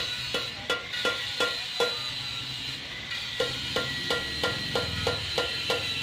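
Hammer striking the rim of an aluminium alloy car wheel, heated with a gas torch, to knock out a dent. Sharp, regular blows come about three a second, with a pause of about a second and a half in the middle.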